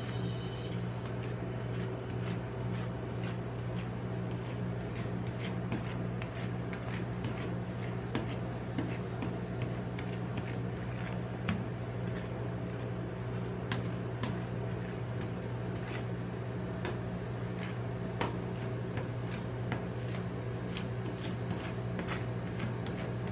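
Metal spatula scraping and tapping on a stainless-steel rolled-ice-cream cold plate, spreading frozen ice cream mixed with crushed Pringles into a thin sheet: many short, irregular scrapes and clicks. Under them runs a steady low hum.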